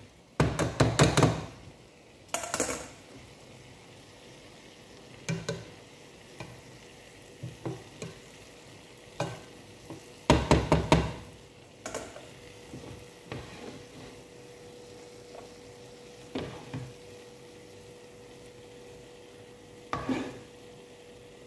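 Serving spoon scooping parboiled rice into a pan and layering it over chicken curry: short bouts of clatter and scraping against the cookware, the biggest about a second in and again about ten seconds in, with a faint steady hum underneath.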